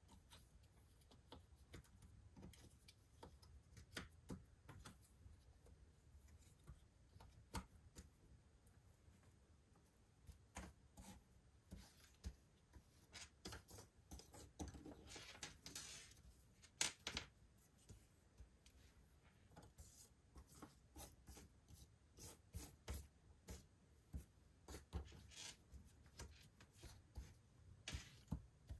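Jigsaw puzzle pieces being handled and set down, making scattered soft clicks and taps, with a short rustle of pieces being shuffled about halfway through.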